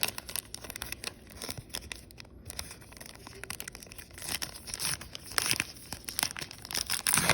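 Baseball card pack wrapper being torn open and crinkled: irregular ripping and crackling, loudest in a run of rips a little after the middle and again just before the end.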